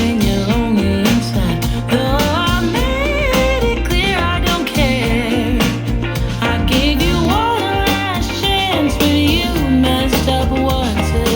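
A song with a solo singing voice, guitar and steady bass, played back through a portable Bluetooth speaker and recorded binaurally from about a metre away.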